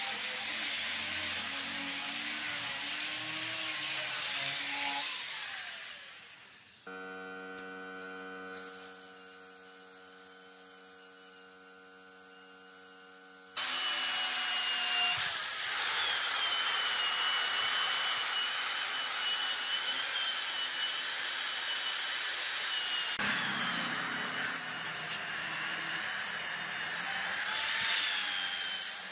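Power sanding on a hardwood slab that dies away after about five seconds. A quieter steady hum follows. About halfway through, a cordless drill with an abrasive brush wheel starts suddenly, its motor whining high over the scratchy scrub of the brush scouring the rough, rotted wood.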